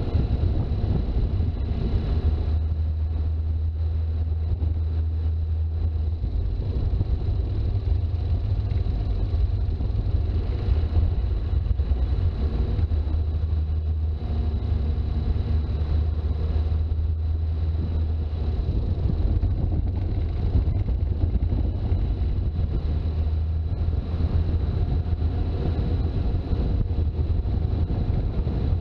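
Toyota HJ61 Land Cruiser's 12H-T turbo-diesel straight-six running steadily while driving, a deep continuous drone whose pitch shifts a little with the road. A faint thin high whine runs along with it.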